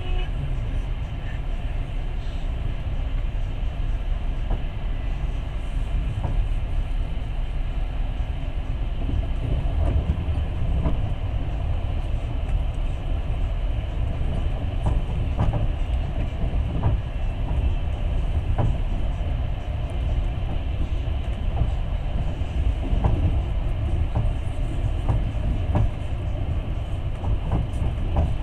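Passenger train running along the track: a steady low rumble of the carriage, with the wheels clicking over rail joints now and then.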